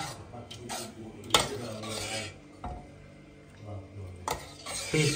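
Dishes, pots and metal utensils clinking and scraping, with one sharp clatter about a second and a half in.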